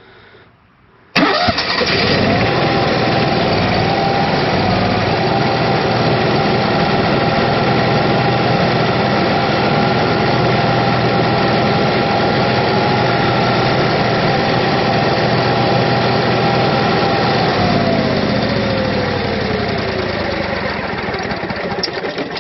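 Cummins Onan QG 5500 gas RV generator cranking and starting about a second in, then running steadily, its first run after a fresh oil change to fill the oil filter. Near the end its pitch falls away as it is shut down and winds down.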